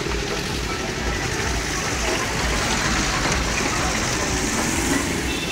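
Road traffic: vehicle engines running under a steady rush of road and wind noise, with a pulsing low rumble.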